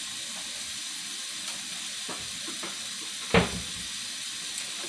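Kitchen tap running into a metal pot of kale leaves in the sink, a steady splashing hiss. One sharp knock comes a little over three seconds in.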